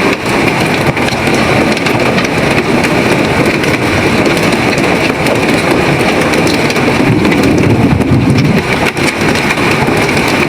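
Heavy rain and hail pelting a car: a loud, steady din peppered with many sharp ticks.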